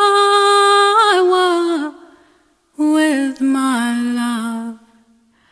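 A woman singing unaccompanied. She holds a long, ornamented note that fades at about two seconds. After a short gap comes a lower phrase that steps down and dies away.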